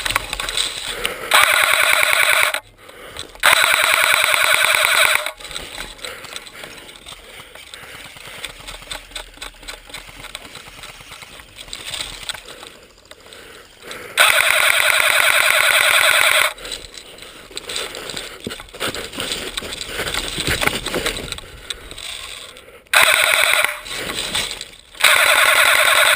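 Airsoft gun firing on full auto in five long bursts of one to two seconds each, loud and rattling, with quieter clicking and shuffling between the bursts.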